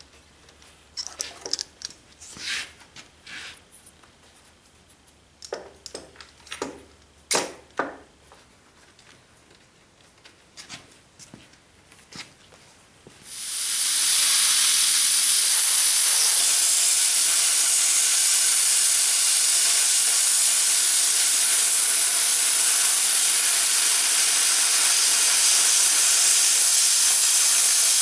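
A few scattered clicks and knocks of metal handling, then about halfway through a small Cut 40 plasma cutter's torch starts with a sudden loud, steady hiss as it cuts a round hole in quarter-inch steel plate.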